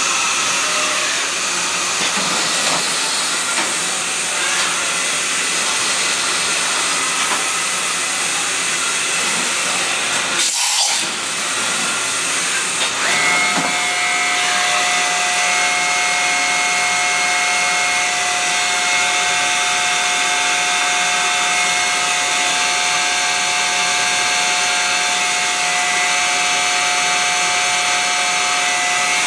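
Mazak Super Mold Maker 2500M CNC vertical machining center running, a steady loud hiss with machine whine. There is a brief break about ten seconds in, and just before halfway a steady high-pitched spindle whine starts and holds.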